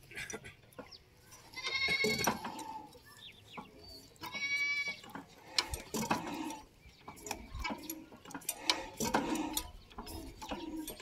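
A goat bleating twice, each call about half a second long, over scattered sharp clicks and knocks.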